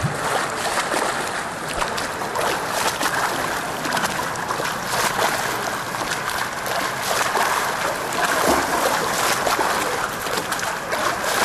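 Pool water splashing and churning from a swimmer's arm strokes and kicks: a steady rush of water with frequent small splashes.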